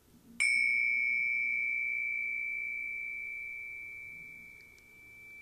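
A small bell-like metal chime struck once about half a second in. It leaves a single clear, high ringing tone that fades slowly over the following seconds and is still faintly ringing at the end.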